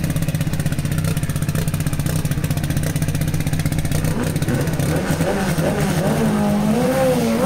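Turbocharged, Weber 40-carbureted VW Gol engine idling with a steady, quickly pulsing beat. From about five seconds in, wavering rising-and-falling tones sound over it.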